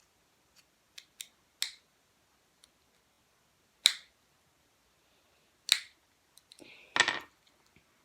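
Scattered sharp clicks and taps of small fingerboard parts and a small tool being handled while trucks are fitted to the deck. There are a few single clicks, then a short clatter of several near the end.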